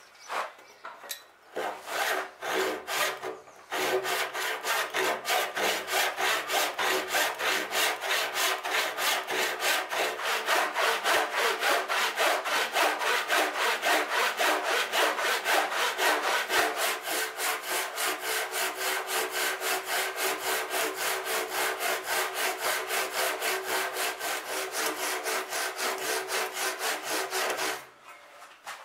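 Hand backsaw cutting through the wooden keel timber's leading edge. A few starting strokes lead into quick, steady back-and-forth sawing, which stops near the end.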